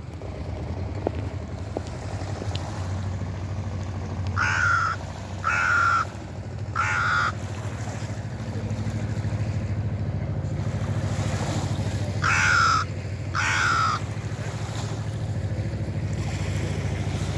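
Hooded crow cawing: three caws about a second apart, then after a pause two more, over a steady low rumble.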